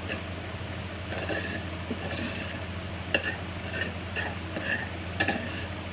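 Metal spoon stirring cooked rice coated in olive oil in a hot saucepan, with scattered clinks and scrapes against the pot and louder knocks about three and five seconds in.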